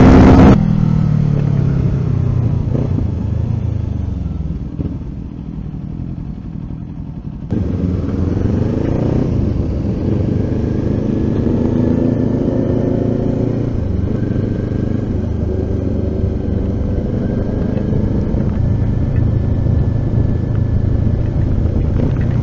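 Kawasaki Ninja 400's parallel-twin engine heard from on board while riding on a wet road, with wind and road noise over it. The engine note falls as the bike slows in the first few seconds. From about seven and a half seconds in, it rises as the bike accelerates and then runs steadily.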